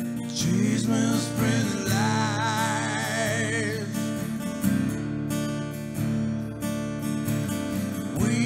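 A man singing live to his own acoustic guitar, with the guitar chords ringing under the voice. One sung phrase is held with a wide vibrato from about half a second to four seconds in, and the guitar carries on beneath.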